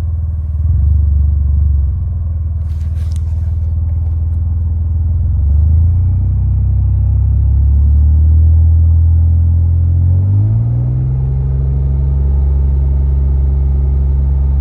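Car engine running at idle, its speed stepping up about ten seconds in and holding higher, raising the charging-system voltage before the amplifier gains are set. A brief click about three seconds in.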